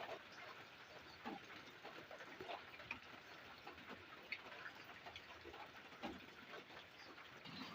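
Light rain: a soft steady patter with scattered separate drops ticking irregularly.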